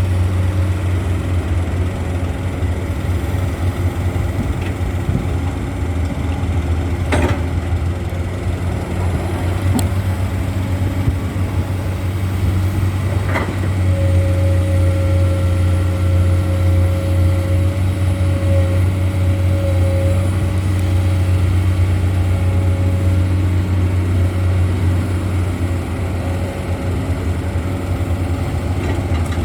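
Komatsu PC200 excavator's diesel engine running steadily, with three sharp knocks in the first half and a steady high whine that comes in about halfway.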